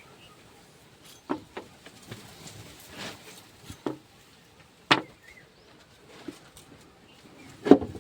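Handling noise as a knife and its box are handled: a string of irregular knocks and clicks with a short rustle, the strongest knock about five seconds in and the loudest just before the end.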